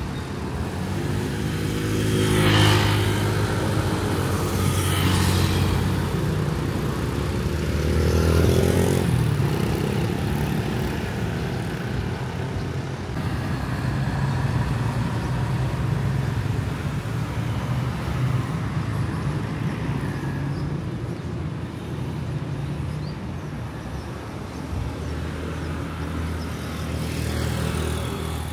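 Street traffic: engines running and road vehicles passing close by one after another. The loudest passes come in the first ten seconds.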